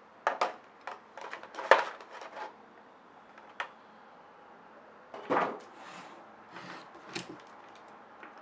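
Handling noises from unboxing a microphone: a series of short clicks, knocks and rustles in two bursts, the loudest a sharp knock a little under two seconds in.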